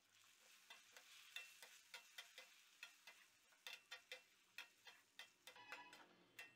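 Faint clicks and scrapes, about three or four a second, as a steel spoon stirs diced potatoes in a stainless steel pan, over a faint sizzle of the potatoes frying in oil.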